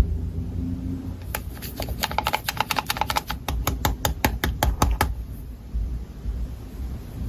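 Slime being squeezed and pressed by hand, giving a quick run of crisp clicks and pops, about five a second, from about a second in until about five seconds in, over a low rumble of handling noise.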